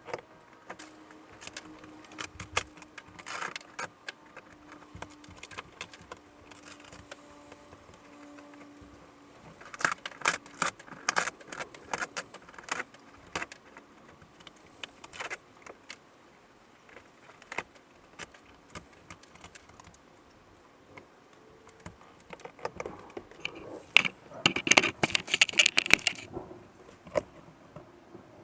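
Thin board paneling of a sagging RV ceiling being pulled down by hand: scattered cracks, crackles and snaps as the board splits and breaks away, in denser bursts about ten seconds in and again near the end.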